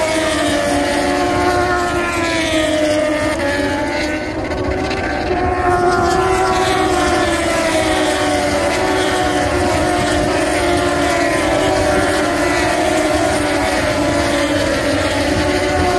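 High-revving racing motorcycle engines run without a break as several bikes pass in turn. The pitch slides down and climbs again as each one goes by.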